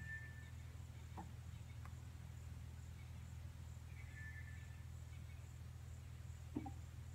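Faint bush ambience: a steady, evenly pulsing high insect chirp, two short bird whistles at the start and about four seconds in, and a low steady hum underneath.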